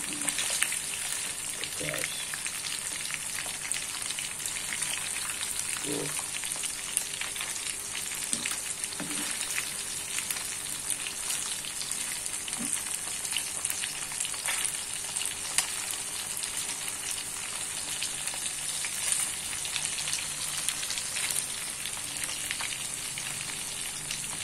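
Small climbing perch frying in hot oil in a pan: a continuous sizzle with many fine crackles of spitting oil, and a metal ladle stirring the fish now and then.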